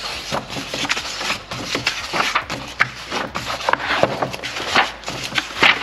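Pages of a paperback book being leafed through by hand: a quick, irregular run of paper rustles and flaps, with a louder flap near the end.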